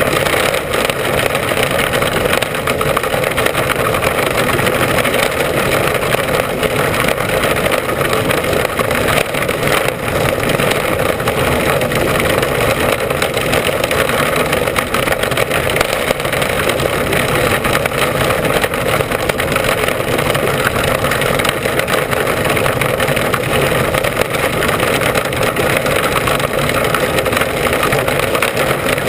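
Mini Sprint racing car's engine running at racing speed, heard from on board: a loud, steady engine noise that hardly changes.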